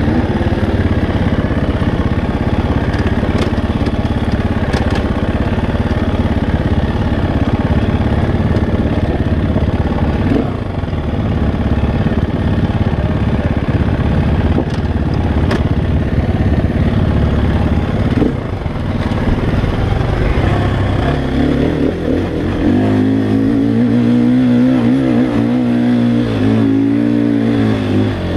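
KTM 350 XCF-W's single-cylinder four-stroke engine with a full Akrapovic exhaust, ridden hard along a dirt trail, revving up and down as the rider works the throttle. From a little past two-thirds of the way in, it holds a higher, steadier pitch under heavy load, pulling up a steep hill climb.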